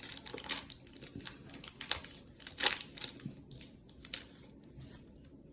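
Snack packaging crinkling and rustling in irregular crackles, with the loudest crackle about two and a half seconds in.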